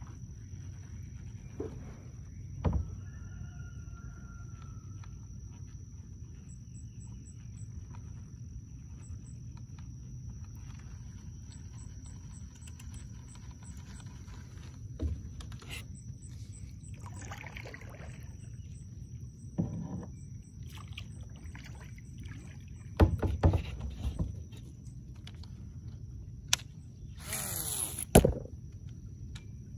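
Kayak fishing sounds over a steady low rumble of water and wind: scattered hollow knocks against the kayak, and near the end a cast whirring off a baitcasting reel that stops with a sharp clack as the line snarls in a backlash.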